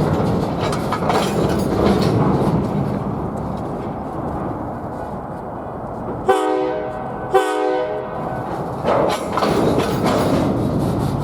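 Train rolling by with a steady rumble and wheel clatter, broken about six seconds in by two short blasts of a Nathan K5LA five-chime locomotive air horn, a second apart.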